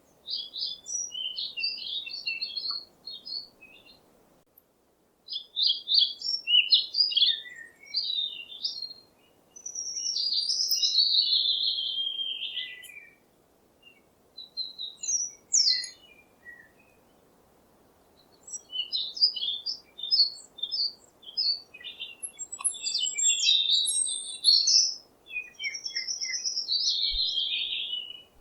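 Small songbirds chirping in quick bursts of high notes, separated by short pauses, with a couple of longer phrases that sweep downward in pitch.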